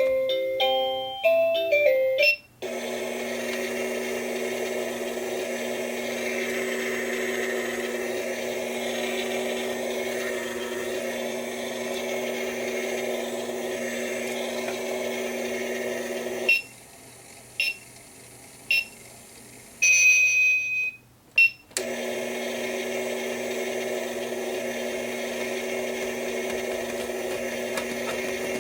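Battery-powered toy kitchen appliance: a short electronic tune of stepped notes, then a steady motor hum. The hum stops partway through, and a few clicks and a short beep follow before the hum starts again.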